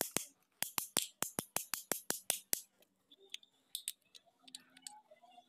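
Fast, even clicking at about six clicks a second as the pinion drive of a Mahindra Bolero starter motor is turned with pliers on its armature shaft. It stops about two and a half seconds in, leaving a few scattered clicks of metal parts being handled.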